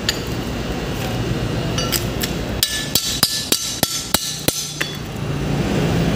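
Steel-on-steel hammering on a forklift caster wheel leg and its bearing: a couple of lone knocks, then, a little over two and a half seconds in, a quick run of about nine sharp metallic strikes with a ringing note, over a steady low hum.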